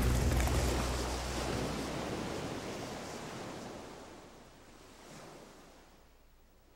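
The end of a background music track fading out: its notes die away early on, leaving an even wash of noise that fades steadily to near silence.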